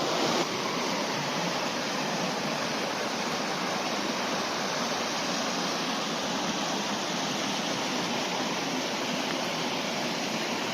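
Steady rush of a moorland river running over small waterfalls and rocks, an even, unbroken sound of flowing water.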